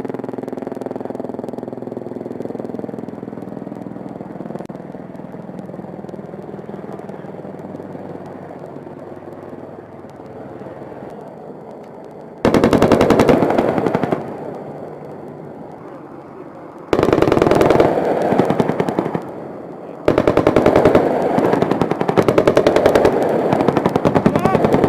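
A steady helicopter hum, then three bursts of rapid automatic cannon fire from an AH-64 Apache's 30 mm chain gun. The bursts come about twelve, seventeen and twenty seconds in, and the last one runs longest.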